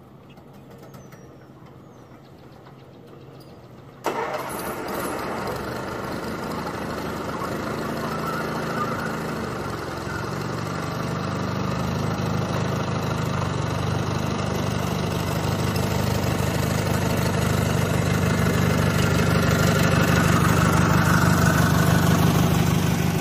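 Roper 16T garden tractor's engine running, starting abruptly about four seconds in and growing steadily louder as the tractor drives out toward the microphone.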